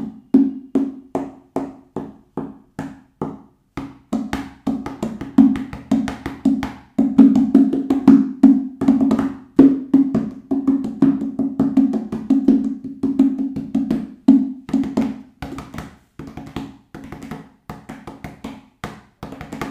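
Upturned plastic bucket played as a hand drum with bare hands: a steady beat of about three strokes a second, turning after about four seconds into a faster, busier rhythm, softer in the last few seconds. Each stroke carries the bucket's hollow ringing pitch.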